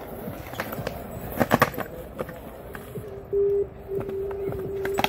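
Skateboard being worked through freestyle tricks on concrete: wheels rolling, with repeated knocks of the board and tail against the ground, loudest about a second and a half in. A steady held tone comes in over the last two seconds.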